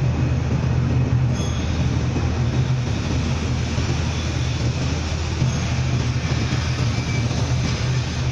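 Steady, loud machine noise: a low hum with an even rumbling hiss over it, no clear strikes or pauses.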